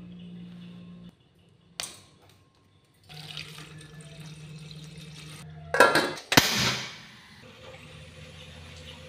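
Water poured into a steel pot, starting quietly about three seconds in and rising to a loud splashing rush for about a second.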